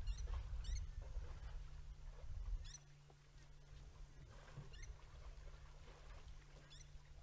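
Waterhole ambience: a bird gives short, high chirps a few times, over a low, steady rumble.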